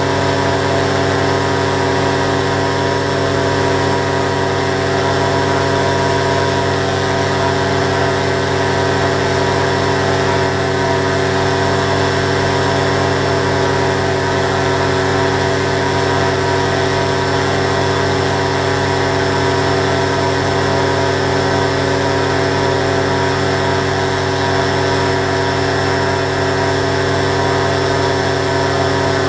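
Quicksilver ultralight's engine and propeller running at a steady speed with the aircraft standing still, even throughout with no stumble or change in pitch.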